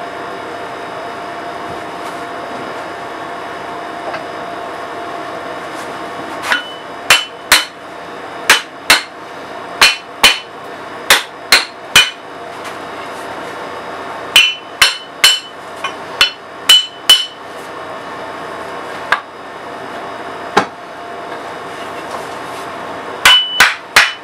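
Hammer blows on the steel head of an axe, driving it back onto its dried-out wooden handle: sharp metal-on-metal strikes with a ringing note, in quick groups of two to five, starting about six seconds in. A window air conditioner hums steadily throughout.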